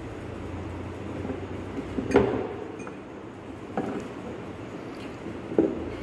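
A few short knocks and clinks as a glass ampoule and syringe are handled, three in all, the loudest about two seconds in, over a steady low hum.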